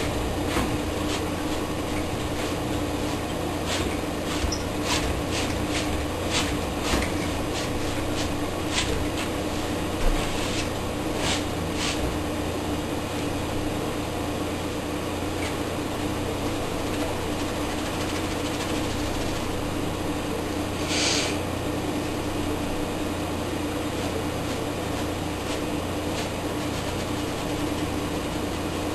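Steady mechanical hum with a hiss, with scattered light clicks through the first dozen seconds and a short hiss a little past twenty seconds.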